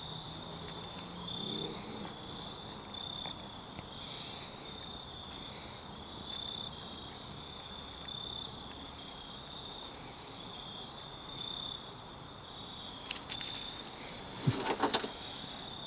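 A cricket trilling steadily on one high note, with a few short rustles of dry leaves near the end.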